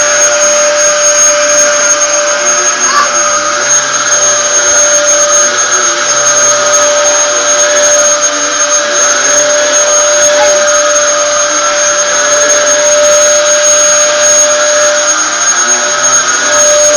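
Dyson vacuum cleaner running steadily with a high whine over its rushing airflow; a lower hum in the whine drops out briefly near the end.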